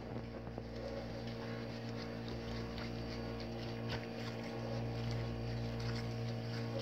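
Electric mixer motor running steadily with a constant hum as it kneads a sticky yeast dough in a bowl.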